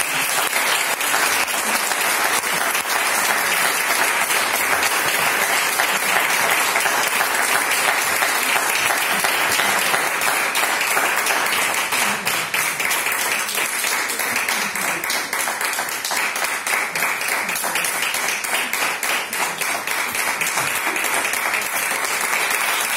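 Audience applauding: a sustained, dense clapping that keeps an even level throughout.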